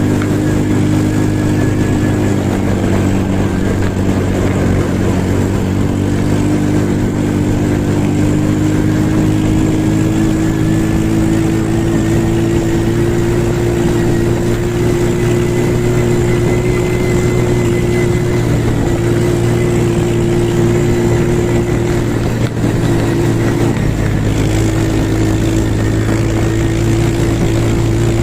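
Motor vehicle engine running at a steady speed, its pitch creeping slowly upward over the first half, over a constant road drone.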